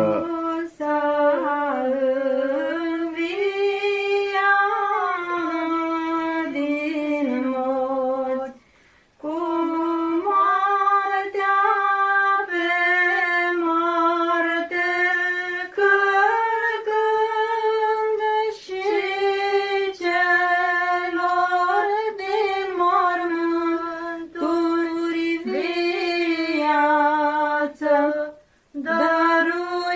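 Nuns singing an unaccompanied chant in women's voices, a slow melody of long held notes with small turns between them. It breaks off briefly about nine seconds in and again near the end.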